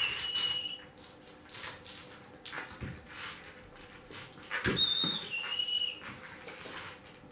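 A two-note recall whistle for a dog, a steady high note stepping down to a slightly lower one: the tail end of one at the start, then a full one about five seconds in. Faint small knocks and rustles lie between them.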